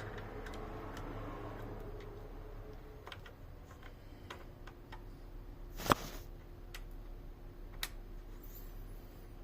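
Scattered small clicks and taps from handling the parts of a rifle under repair, with one loud sharp click about six seconds in and a lighter one near eight seconds, over a steady low hum.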